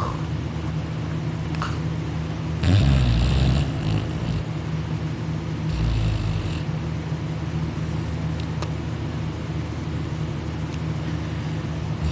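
A young man snoring loudly in his sleep: two snores, the louder one about three seconds in and a second about three seconds later, over a steady low hum.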